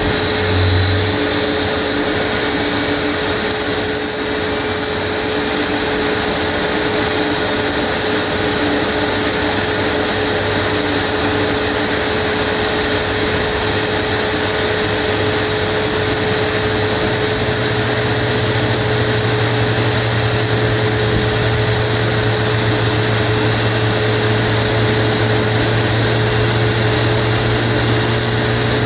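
Boeing 737 MAX's LEAP-1B turbofan running steadily on a ground preservation run: a loud, even rush with a steady whine. A high tone climbs slightly in the first few seconds, and a low hum steps up a little about halfway through.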